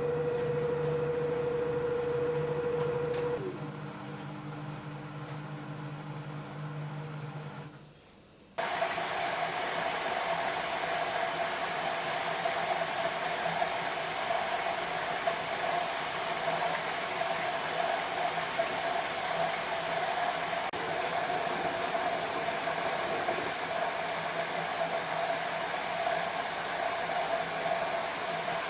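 LG F10B8QD1 direct-drive washing machine: a steady motor whine with clear tones drops about three seconds in and dies away by about eight seconds. About eight and a half seconds in, a loud, steady hissing rush starts suddenly with a hum under it and carries on, the sound of the machine moving water as the cycle changes stage.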